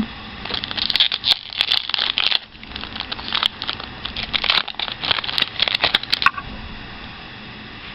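Foil Pokémon booster pack wrapper crinkling and crackling as it is torn open and handled. The crackles run in a dense, irregular stream and stop about six seconds in.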